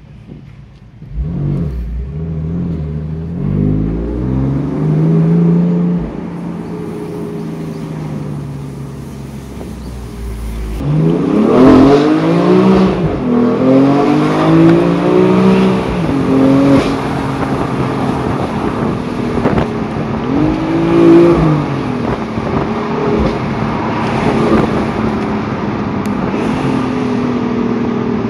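BMW M4's twin-turbo straight-six heard from inside the cabin, accelerating through the gears: the engine note climbs and drops back at each upshift. About eleven seconds in it pulls hard through a quick run of shifts, revs up twice more, then settles to a steadier cruise.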